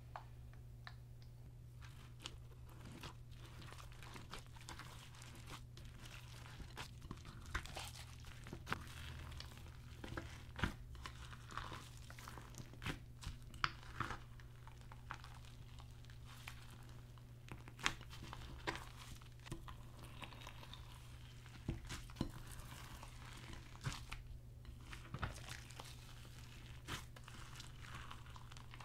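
Clear slime packed with foam pieces and sequins being kneaded and squeezed by hand in a glass bowl, giving irregular wet crackles and pops, sparse at first and denser from several seconds in. A steady low hum runs underneath.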